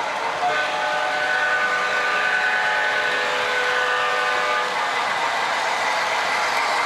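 A model locomotive's sound system blowing a chord horn for about four seconds, over the steady noise of O scale trains running on the layout.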